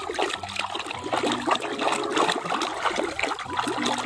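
Water sloshing and splashing irregularly as a hand swishes a plastic toy animal around in a tub of water, washing the mud off it.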